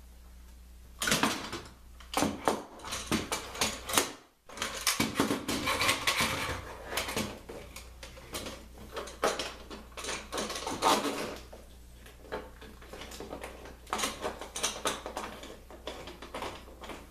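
Clamps being fitted and tightened onto thin baltic birch plywood strips: a run of sharp clicks, clacks and rattles of metal clamp parts and wood, busiest in the first few seconds and again near the end.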